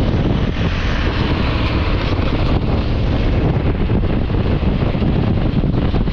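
Steady wind rush buffeting the microphone of a camera on a moving motorcycle at road speed, over a low rumble of engine and tyres.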